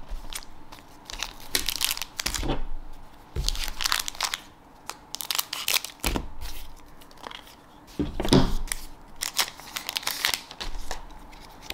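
Foil trading-card booster pack wrapper crinkling and rustling in the hands as it is cut open with scissors and the cards are pulled out, in a string of irregular crackly bursts.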